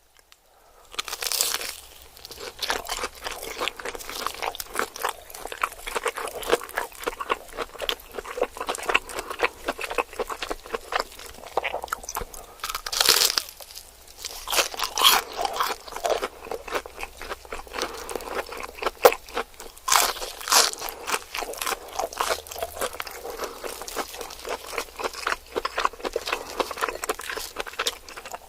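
Close-miked crunching, biting and chewing of fried cheese sticks, a dense run of crisp crackles with sharper louder bites every few seconds.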